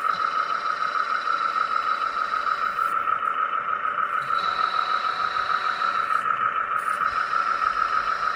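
Hydraulic pump of a Lesu MC15 radio-controlled hydraulic excavator running with a steady, fluttering whine, while a higher whine drops out briefly twice and comes back.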